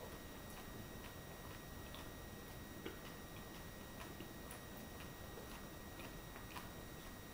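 Quiet room with faint, fairly regular ticking, about two ticks a second, over a steady low hiss and a thin high electrical whine.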